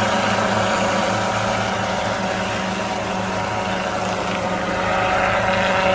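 Crop-spraying helicopter running with a steady, even hum.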